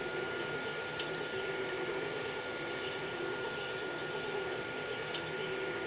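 Delta 3D printer at work printing a part: a steady whir of its fans and stepper motors with a constant high whine, and a few light ticks.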